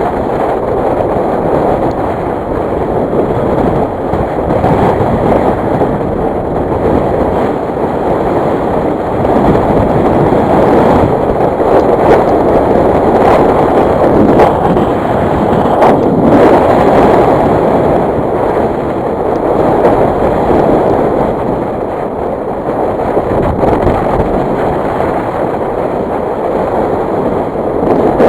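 Wind buffeting the microphone: a loud, continuous rushing that swells and eases.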